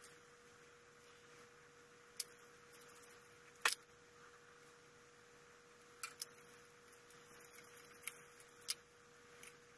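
Scattered light clicks and taps from spade connectors and a small hand tool being worked at wiring terminals, the sharpest click about four seconds in, over a faint steady tone.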